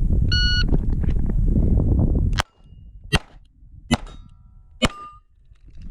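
Shot timer beeps about a third of a second in, over wind buffeting the microphone. Then a Beretta 92 9mm pistol fires four shots about three-quarters of a second apart, with steel targets ringing after hits.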